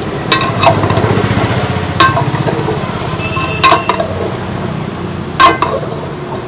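Long metal ladle stirring goat meat in a large aluminium pot, clinking against the pot's side about five times, the loudest clink near the end. The meat is being cooked down to dry off the water it releases.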